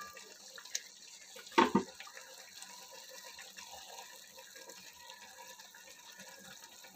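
Pot of pulao rice simmering on a gas burner, a faint steady hiss as the last of its water cooks off, with a single knock about one and a half seconds in.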